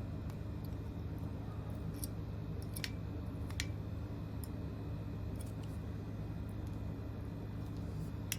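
Needle-nose pliers bending over the leads of a new alternator stator: a few sharp metallic clicks, the clearest between two and four seconds in, over a steady low hum.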